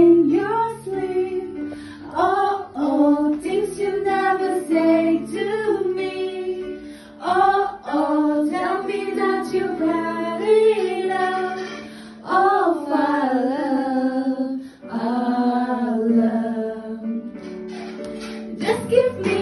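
Several women singing a song together into a handheld microphone, over instrumental accompaniment.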